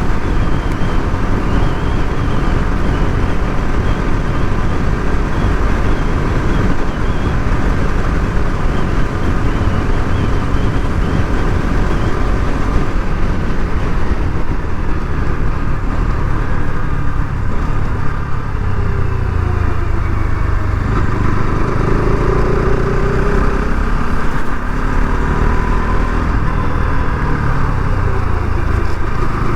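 Bajaj Pulsar RS 200 motorcycle riding along, its single-cylinder engine running steadily under heavy wind rush on the microphone. In the last third the engine note rises and falls.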